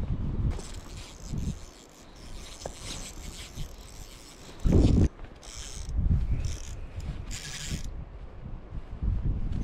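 Baitcasting reel being cranked, whirring and ratcheting in several short stretches. A loud low thump about five seconds in, and low wind rumble on the microphone.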